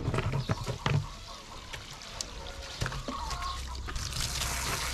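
Plastic knocks and clatter as a plastic poultry drinker is handled. A bird calls briefly about three seconds in. Near the end, water starts running from a garden hose.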